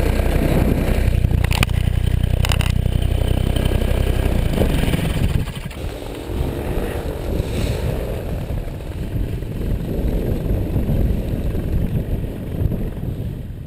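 Powered paraglider engine and propeller running steadily at cruise power, close to the microphone. About five seconds in it gives way to wind rumbling on the microphone, with a paramotor engine faintly buzzing overhead.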